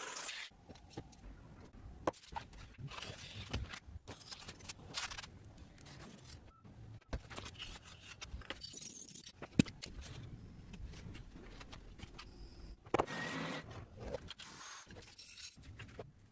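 Small metal parts clinking and jingling, with scraping and scattered sharp clicks and knocks; one sharp click about halfway through is the loudest.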